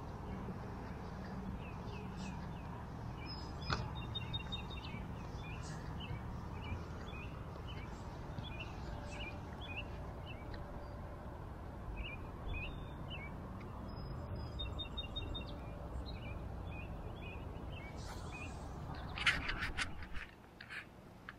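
Small birds chirping and singing in many short calls, with a few brief whistled notes, over a steady low background rumble. Near the end there is a short burst of scratchy rustling from a hand rubbing on the action camera.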